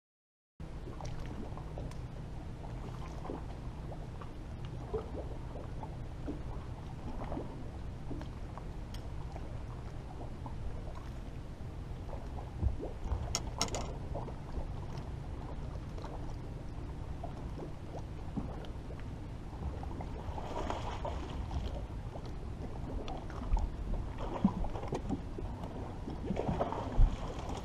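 Bass boat sitting on the water: a steady low hum with water and wind noise, coming in just under a second in. Scattered clicks, knocks and rustles of fishing tackle being cast and worked break through it, a quick pair of sharp clicks near the middle and louder knocks toward the end.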